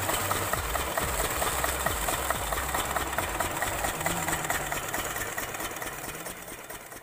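Single-cylinder stationary diesel engine with twin flywheels running steadily while driving an irrigation water pump: a regular, rapid chugging knock of about four to five beats a second over a low rumble. The sound fades away near the end.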